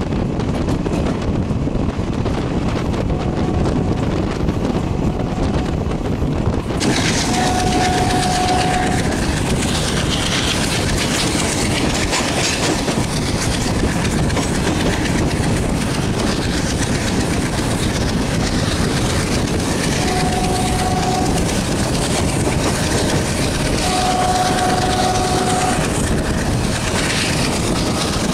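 Passenger train running at speed, heard from a coach doorway: continuous wheel-on-rail clatter and rushing air, the hiss growing about seven seconds in. A locomotive horn sounds steady blasts about eight, twenty and twenty-five seconds in, the last the longest.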